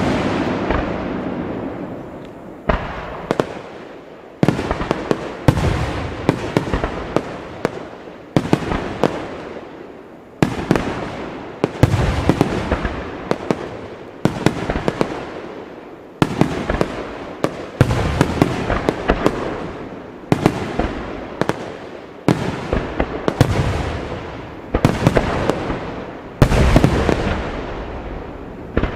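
Aerial fireworks shells bursting one after another, a loud boom every second or two, each trailing off into a fading rumble scattered with small crackling pops.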